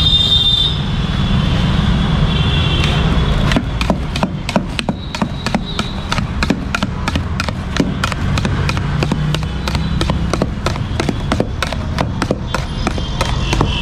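Long knife chopping watermelon chunks in a steel pot: rapid, regular strikes at about four a second, starting a few seconds in, over a steady low background rumble.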